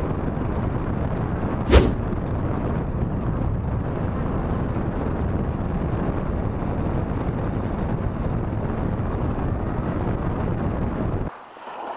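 Wind buffeting the microphone over a small motorbike riding along a road, a steady rushing noise, with one sharp knock about two seconds in. Near the end it cuts off abruptly to a much quieter background.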